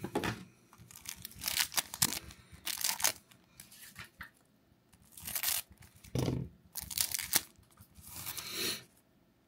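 Clear plastic wrapper around a single foil trading card being crinkled and torn open by hand, in short irregular bursts of rustling.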